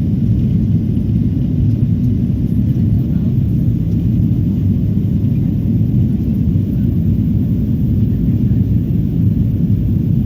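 Steady, loud low rumble of a Boeing 777 heard from inside the passenger cabin: engine and airframe noise as the airliner moves for takeoff.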